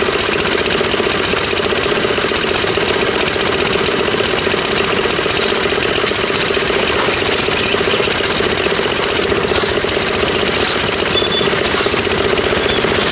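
Concrete mixer's engine running steadily.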